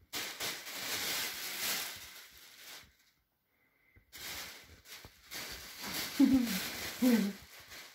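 Thin plastic shopping bag rustling and crinkling as a cat pokes into it and a hand handles it, in two spells with a second's pause between. Near the end come two short, low, falling voice-like sounds.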